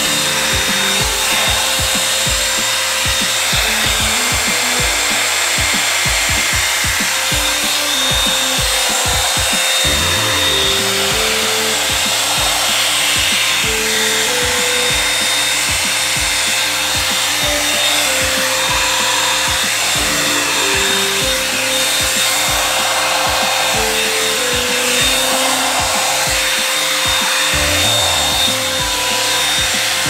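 Revlon One-Step hot-air brush dryer running steadily, a loud fan hiss with a steady whine, under background music with a steady beat.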